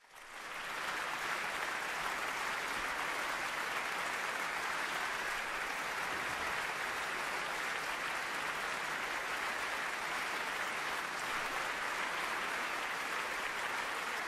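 Audience applause: steady, dense clapping that swells up in the first second, welcoming performers onto the stage.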